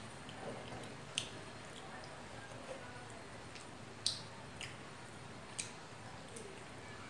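Wet eating sounds of chicken curry and rice eaten by hand: a handful of sharp, irregular mouth and finger smacks and clicks over faint chewing.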